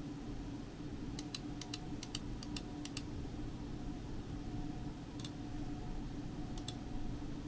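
A few faint, scattered key clicks from a custom 60% keyboard with Gazzew Boba U4T switches, most of them bunched in the first few seconds, over a steady low hum.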